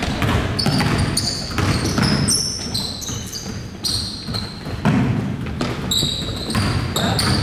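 Basketball bouncing on the court during play: repeated thumps, mixed with short high squeaks of sneakers on the floor.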